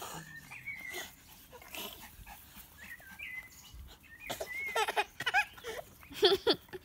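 Small Biewer terriers whining and yipping as they play-fight over a ball, in short high calls, with louder ones about four and a half seconds in and again just after six seconds.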